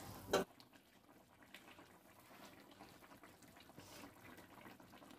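Curry gravy simmering in a wide metal pan on a gas stove: faint bubbling with small scattered pops. A single sharp knock just after the start is the loudest sound.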